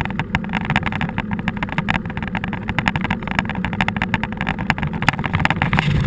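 Mountain bike ridden over rough ground, heard through a camera mounted on the bike: a dense, irregular clatter of clicks and knocks from the bike and camera mount over a steady low rumble of wind and tyres.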